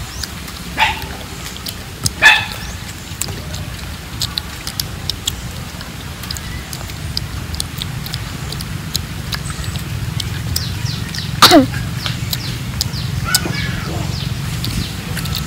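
Spoons scraping and scooping soft fruit flesh, with light clicks and eating sounds over a steady low wind rumble. A few loud short animal calls cut through, about two seconds in and again about eleven seconds in, one of them falling sharply in pitch.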